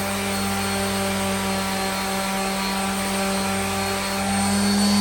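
Palm sander running at a steady pitch while sanding a lower control arm's tube, smoothing out the grinding marks.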